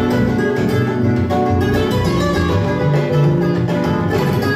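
Recorded music playing back from a vinyl record on a turntable, continuous and fairly loud.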